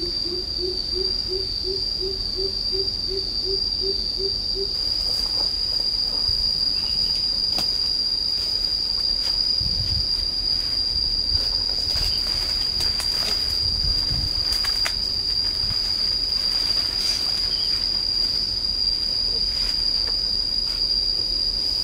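Insects droning outdoors: one steady high-pitched buzz that holds unchanged throughout. For the first four or five seconds a low pulsing sound repeats about three times a second under it, and a few faint knocks come later.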